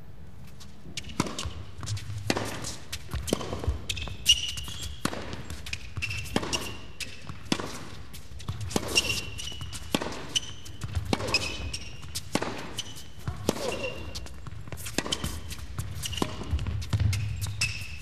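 Tennis rally on an indoor court: after about a second of quiet, a tennis ball is struck by rackets and bounces on the court over and over, roughly every half second. Tennis shoes squeak in short high chirps on the court surface between the strokes.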